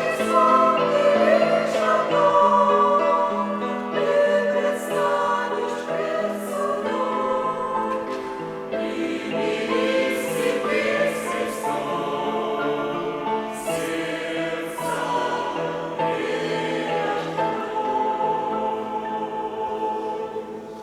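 Church choir singing a Christian hymn in sustained chords of many voices, fading out at the very end.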